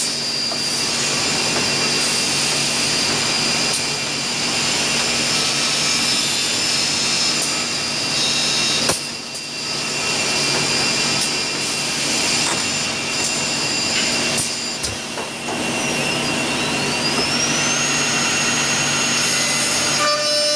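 Holztek high-speed six-sided CNC drilling machine running on a wood panel: steady mechanical noise with high-pitched whines from its spindles. It dips briefly about nine seconds in, and near the end a whine rises in pitch and then holds steady.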